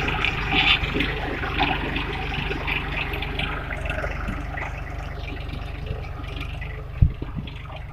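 Tractor engine running steadily while pulling a seed drill through tilled soil, with a short thump about seven seconds in.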